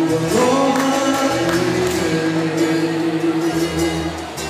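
Music with a singing voice over a steady bass line, holding long notes.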